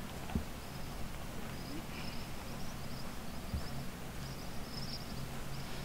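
Quiet outdoor ambience with faint, high, short chirps repeating many times, from small animals, over a steady low rumble. Two soft low thumps land about half a second in and about three and a half seconds in.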